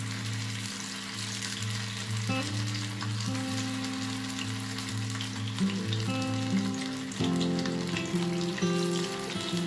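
Masala-coated fish slices sizzling and crackling in shallow hot oil on a dosa tawa as more pieces are laid into the pan.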